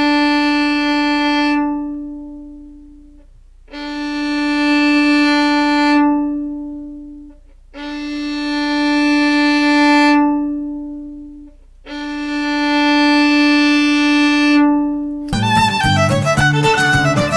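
Violin (fiddle) playing long, smooth bowed notes all on one pitch, about four slow bow strokes of some four seconds each that swell and then fade, played with the bow flat on the strings about a centimetre from the bridge to get an even tone. Near the end a fast fiddle tune with lower accompaniment cuts in.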